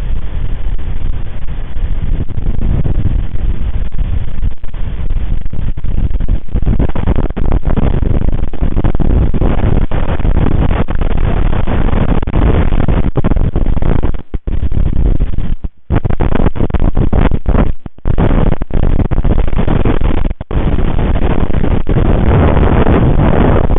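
Strong gusty wind buffeting the nest camera's microphone: a loud, low rumble that surges and cuts out briefly several times in the second half.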